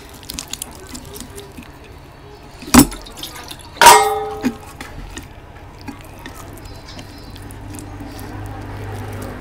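Close-up eating sounds: small wet mouth clicks and chewing, a sharp knock a little under three seconds in, and a louder clink about a second later that rings briefly.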